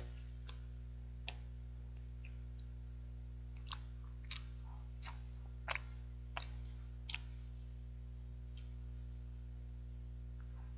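Wet mouth clicks and lip smacks from chewing soft, sticky steamed rice cake (baekseolgi), a scattering of sharp clicks bunched in the middle, over a steady low electrical hum.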